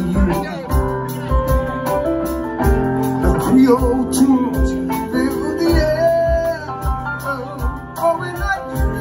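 Live band playing, a drum kit's kick drum thumping steadily under electric guitar, with a man singing into a microphone.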